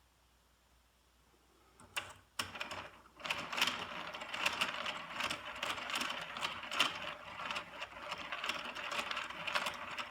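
Plastic Lego Technic gears and mechanism of a hand-cranked automaton clicking and rattling as the handle is turned. A couple of clicks come about two seconds in, and the steady rattling starts about a second later.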